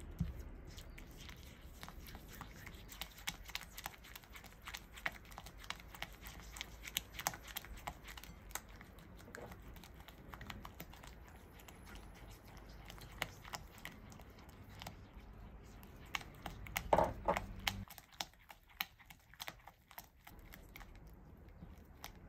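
Silicone spatula stirring a soft butter-and-sugar dough in a glass bowl: repeated short scrapes and taps against the glass and wet, sticky mixing, with a louder flurry of stirring about three-quarters of the way through as beaten egg is worked in. A low hum underneath cuts off near the end.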